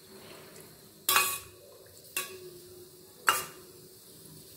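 A metal fork clinks against a stainless steel bowl while it stirs boiled noodles in cold water. There are three sharp clinks about a second apart, each with a brief ring.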